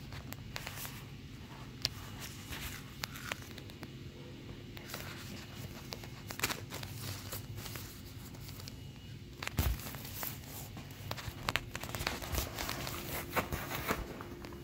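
Vinyl inflatable toys crinkling and rustling under a hand, in irregular clicks and crackles.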